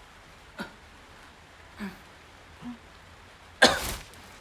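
A man's single loud, hard cough near the end, after a few faint short throat sounds. The cough is faked for a coughing-blood prank.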